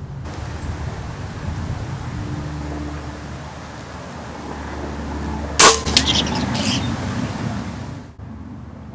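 A .25 calibre Benjamin Marauder pre-charged pneumatic air rifle firing once, a sharp crack about five and a half seconds in, followed by a few fainter clicks in the next second, over a steady low background rumble.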